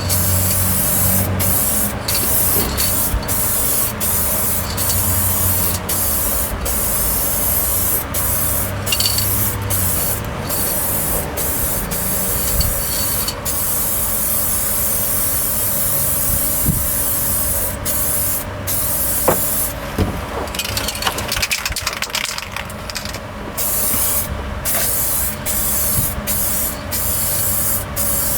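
Paint spraying in repeated short passes, a loud hiss that cuts off and restarts every second or so. A steady low hum runs underneath.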